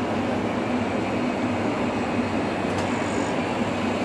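Steady hum and rush of supermarket freezer cases' refrigeration fans and compressors, with a low hum underneath. A click and a short, faint high beep come about three seconds in.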